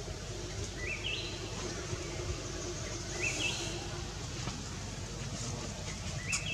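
A small bird calling again and again with short chirps that climb in steps, every second or two, over a steady low rumble.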